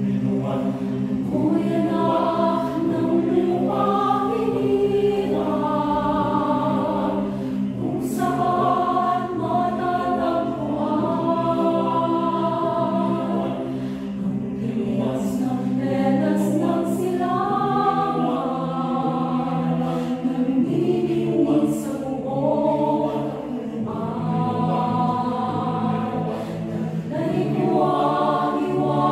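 Mixed-voice choir of men and women singing unaccompanied in several parts, sustained chords moving from note to note with crisp consonants now and then.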